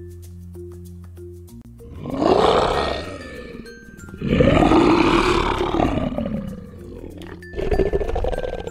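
Lion roar sound effect, roaring three times over light children's background music with mallet-like notes; the first roar comes about two seconds in, the second is the longest, and the third near the end is the shortest.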